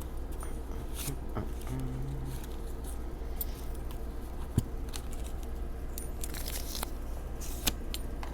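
Cardboard packaging of a tarot deck being opened and handled: light rustling with scattered small clicks and taps, over a steady low hum.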